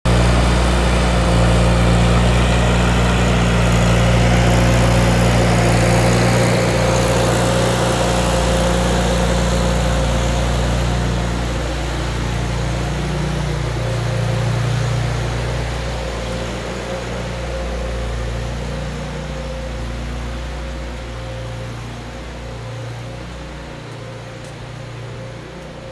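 Miller Bobcat engine-driven welder/generator with its Onan Performer 16 gasoline engine running at a steady speed, growing steadily fainter as the listener walks away from it.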